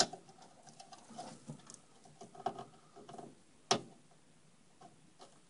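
Faint scratching and rustling of thin wires and small plastic connectors as a front-panel connector is pushed onto motherboard header pins, with two sharp clicks, one at the start and one nearly four seconds in.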